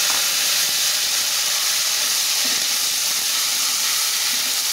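Chopped tomatoes and green chillies sizzling in hot mustard oil with cumin seeds in an aluminium pressure cooker: a loud, steady frying hiss.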